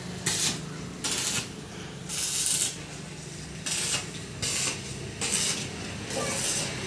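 Arc welding on steel: a string of short bursts of hissing crackle, each under a second, over a steady low hum.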